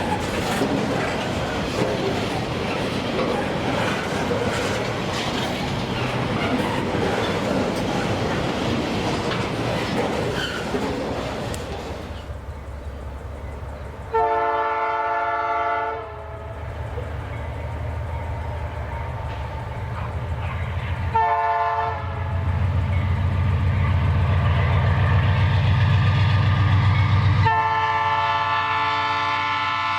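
Freight train rolling past with wheels clattering on the rails. The diesel locomotive then sounds its horn three times: a long blast, a short one and a final long one, over the engine's low rumble, which grows louder toward the end.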